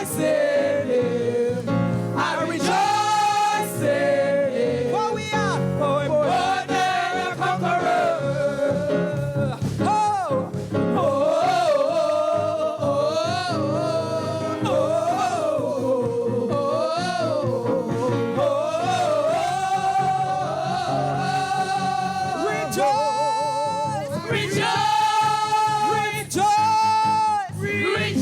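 Live gospel worship song: a singer ad-libbing with runs and wavering pitch over band accompaniment, then holding long notes near the end.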